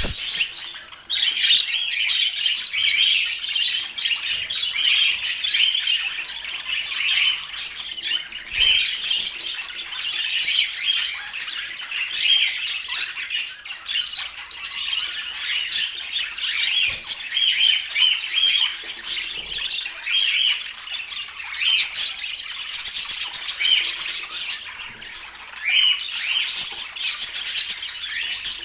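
Budgerigars chattering: a continuous stream of warbling chirps and squawky notes with no pauses.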